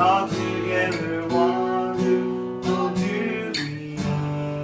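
Acoustic guitar strumming the closing chords of a song, with the last chord left ringing and fading out near the end.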